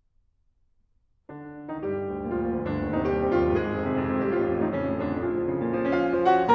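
Near silence for just over a second, then a solo piano starts a new piece at an animated pace.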